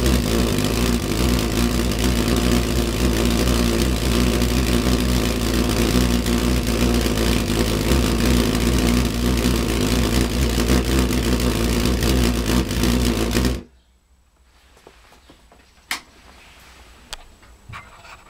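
Homemade pulse jet engine in a bottle running with a loud, steady low buzz from its rapid combustion pulses, then cutting out suddenly about thirteen and a half seconds in.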